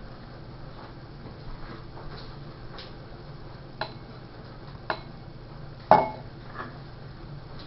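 A few light clinks of a paintbrush against a paint dish, about a second apart, the loudest about six seconds in.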